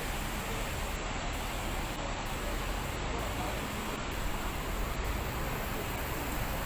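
Steady hiss of outdoor ambience with a low rumble underneath.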